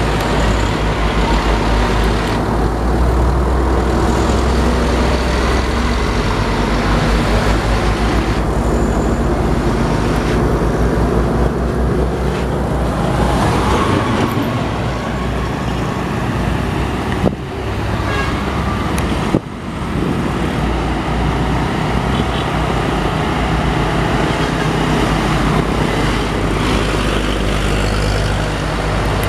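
Heavy loaded diesel trucks grinding uphill one after another, engines working hard with a deep, steady rumble, and one dump truck passing close by.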